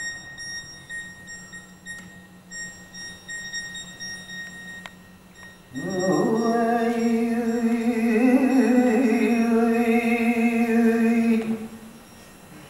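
A single voice singing one long held note, starting about halfway through, wavering slightly in the middle and stopping shortly before the end. Before it there are only faint stage sounds.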